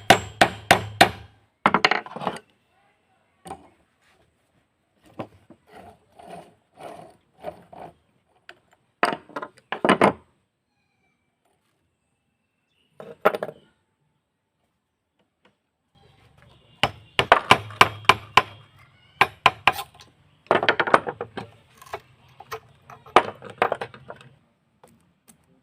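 Hammer taps and metal clinks on metal machine parts, in quick bursts of strikes separated by silent gaps.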